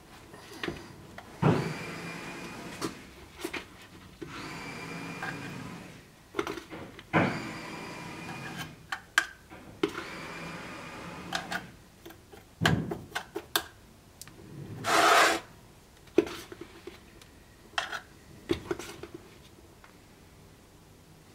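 Hand tool scraping and carving a pommel blank: four long rasping strokes of a second or two each, some with a faint squeal, then a short, louder rasp later on. Clicks and knocks of the tool and the workpiece being handled come in between.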